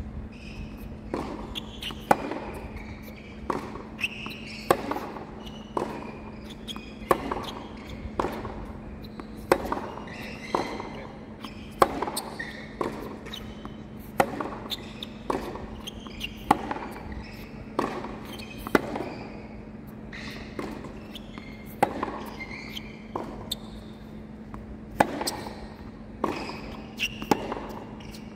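Baseline groundstroke rally on a hard tennis court: racquets striking the ball and the ball bouncing, a sharp pop about every second, with the nearer player's strikes the loudest every couple of seconds. A steady low hum runs underneath.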